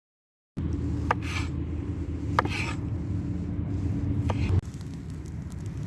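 Campfire sounds: a steady low rumble with three sharp pops and two short hissing bursts. About four and a half seconds in, the sound cuts to a quieter, finer crackle.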